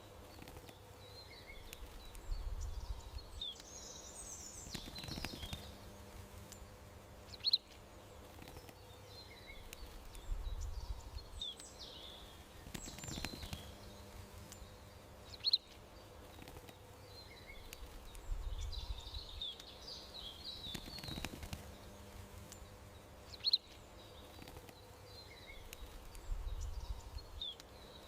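Small birds chirping and twittering, with a sharp louder chirp about every eight seconds over a faint low rumble. The same short sequence repeats at that spacing, like a looped ambience track.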